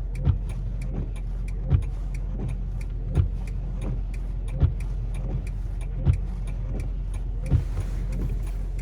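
Steady engine and road noise inside a moving car on snowy roads, with a short thump repeating evenly about every one and a half seconds.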